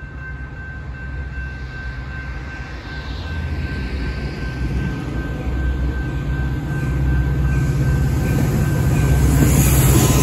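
Metra commuter train approaching behind its diesel locomotive: the engine's steady low drone grows louder, with a faint thin whine above it. Near the end the train reaches the camera and the noise widens as the locomotive's wheels pass on the rails.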